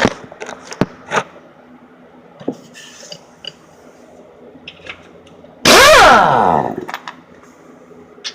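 Power wrench spinning a 13 mm sway bar bracket bolt out for about a second, its pitch sliding as it goes, near the end. Before that come light clinks of a socket and tools against metal.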